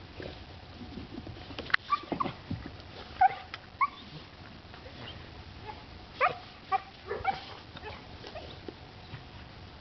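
Puppies playing, giving short high-pitched yips and yelps: a flurry about two to four seconds in and another around six to seven seconds in.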